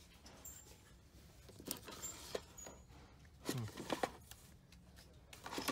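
Plastic DVD cases being handled and pulled on a wooden store shelf: scattered light clacks and scrapes, with a sharper clack about four seconds in.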